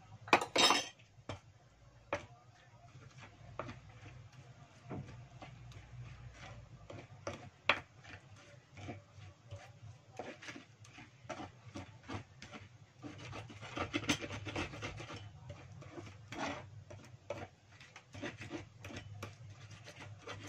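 Pestle grinding chili spice paste in a shallow cobek mortar: repeated gritty scraping and rubbing strokes, with a few sharp knocks at the start.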